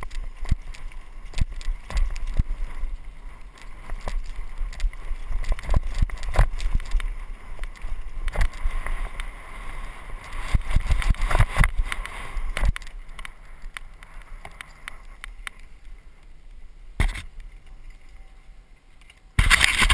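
Mountain bike rattling and knocking over a rough dirt singletrack on a fast downhill run, with wind rumbling on the camera microphone. It goes quieter in the last few seconds apart from one sharp knock, then a loud rush of noise at the very end.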